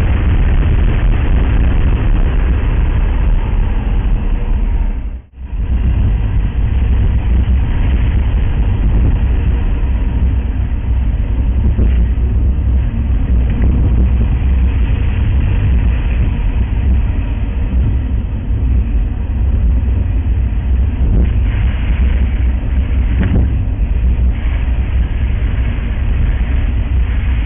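A car driving, heard from a dashboard camera inside the cabin: a steady low rumble of road and engine noise. The sound dips out briefly about five seconds in.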